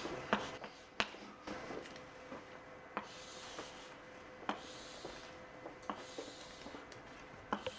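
Chalk drawing lines on a blackboard: a few short, scratchy strokes, with scattered light clicks as the chalk meets the board.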